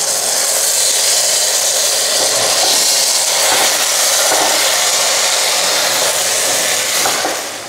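Chicken korma and ghee-toasted rice sizzling steadily in a hot pan as they are stirred together with a spatula. The sizzle eases off near the end.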